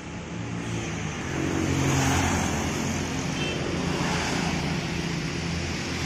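Street traffic with a motor scooter's engine passing close. It grows louder over the first two seconds and stays up.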